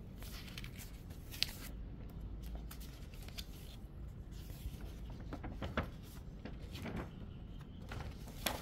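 Soft rustling and clicking of photocards and paper being handled. There is one sharper click about a second and a half in, and more frequent paper rustling in the last few seconds as a sheet of paper is picked up.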